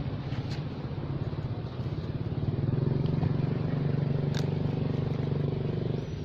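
A motor engine running steadily, its hum growing louder about two seconds in and holding there.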